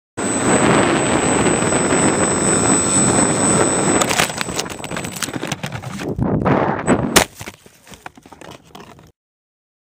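Twin-motor Dow Blue Fan Fold foam RC plane in flight, a steady rush of motor and airflow noise with a faint high whine. About four seconds in it crashes through brush and grass: a run of cracks and knocks, one loud smack near three quarters of the way through, then faint rustling that dies away.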